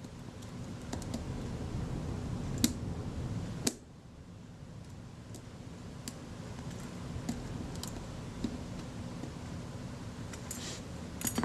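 A few small, sharp clicks and taps of a metal tool working the tiny parts of a camera's leaf shutter while a return spring is hooked back over its post, over a low steady background hum.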